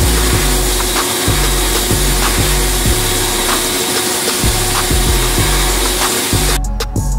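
Sandblast cabinet gun blasting abrasive grit against a first-gen Toyota Tacoma steering spindle: a loud, steady hiss that cuts off about six and a half seconds in.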